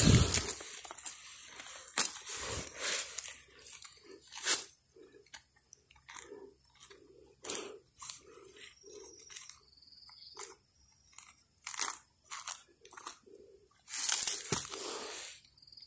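Irregular crunching, cracking and tearing of rotten wood and dry leaf litter being broken apart by hand, with the heaviest crunches near the start and a longer burst of tearing near the end, over a steady high-pitched background buzz.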